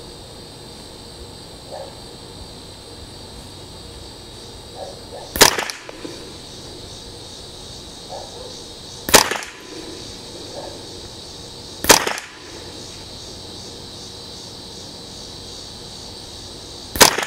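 Four single .22 LR rifle shots from a scoped Ruger 10/22 Target Lite semi-automatic firing SK Rifle Match standard-velocity ammunition: sharp cracks spaced a few seconds apart, the first about five seconds in and the last near the end.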